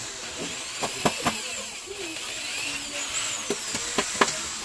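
Corded electric drill running, boring a hole through a metal frame bar, its whine wavering in pitch. Several sharp clicks about a second in and again near the end.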